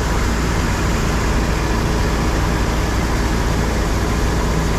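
Combine harvester running at working speed with its unloading auger pouring wheat into a trailer: a steady, loud machine noise with a deep low hum.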